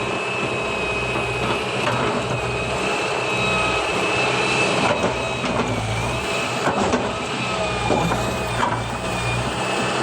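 Excavator engine running steadily, with a steady high whine over the low engine hum and a few light clanks.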